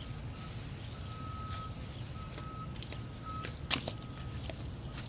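A few sharp metallic clicks, the loudest about three and a half seconds in, over a steady low rumble, with a high beep-like tone that comes and goes several times.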